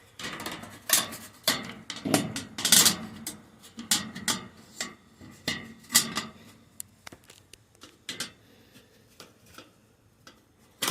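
Irregular clatter and knocking of hard objects being handled, dense for the first several seconds, then a few scattered knocks.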